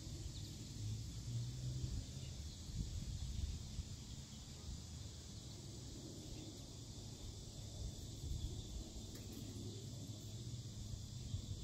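Outdoor ambience: wind buffeting the microphone in an uneven low rumble, under a steady high hiss.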